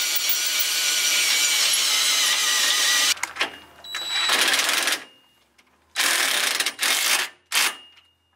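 Cordless impact driver hammering bolts into a steel step frame: one long run of about three seconds, then three shorter bursts as the bolts are run down.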